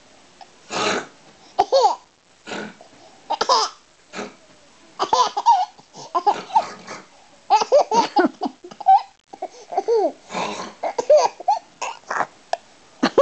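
A baby laughing in repeated short bursts of giggles and squealing belly laughs, set off by someone's pretend snoring.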